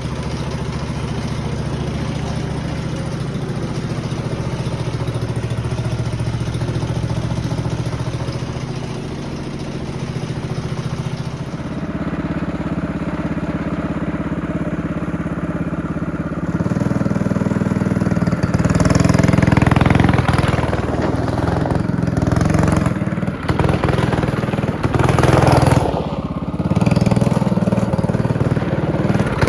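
Go-kart's Predator 212 Hemi single-cylinder four-stroke engine running, steady at first. From a little past halfway its pitch and loudness rise and fall again and again as it is revved and driven.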